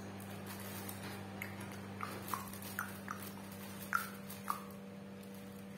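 A steady low hum with about seven short, high chirps falling in pitch, scattered through the middle seconds, from a small chirping animal.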